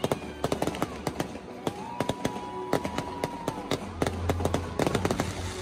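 Aerial fireworks going off in a rapid run of bangs and crackles, several a second, with a held tone of about two seconds in the middle.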